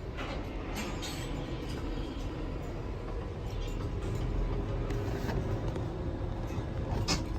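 Steady low machinery rumble with faint steady hum tones, broken by a few light clicks.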